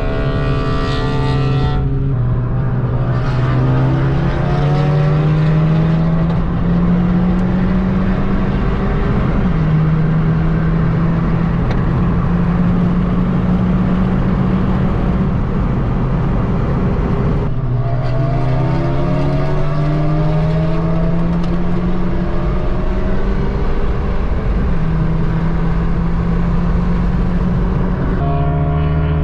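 Honda Civic Type R FK8's turbocharged 2.0-litre four-cylinder with a catless downpipe and straight-pipe exhaust, accelerating hard. The engine note climbs steadily through each gear and drops suddenly at the upshifts, about 2 seconds in, about two-thirds through and near the end.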